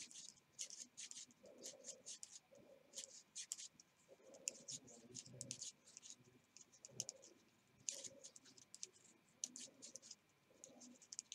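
Knitting needles clicking and scraping together as stitches are worked, with the yarn rustling; faint and irregular, a few small clicks a second.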